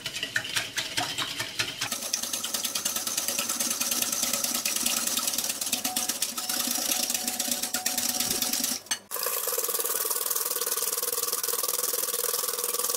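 A wire whisk beating a thin liquid mix of water, oil, egg whites and sugar in a glass bowl: rapid, steady ticking of the wires against the glass with sloshing, broken by a short pause about nine seconds in.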